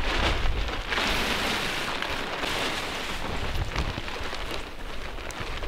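Polyethylene tarp rustling and crackling as it is handled, densest in the first half.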